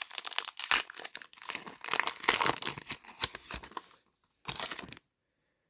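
A trading card pack's wrapper being torn open and crinkled: a dense run of rapid crackles, then one short burst of crinkling before the sound cuts off.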